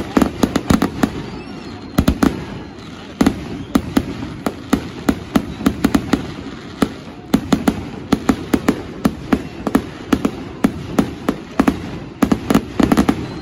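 Aerial fireworks bursting: a rapid, irregular barrage of sharp bangs and crackles coming in dense clusters, with brief lulls between volleys.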